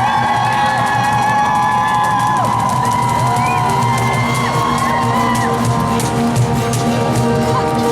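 A live rock band playing amplified music, with sustained guitar lines over bass and drums.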